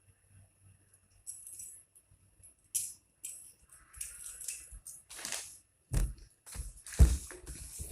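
Handling noise from small rework-station accessories being picked up and moved: irregular rattles, clinks and rustles, with a few sharper knocks in the second half.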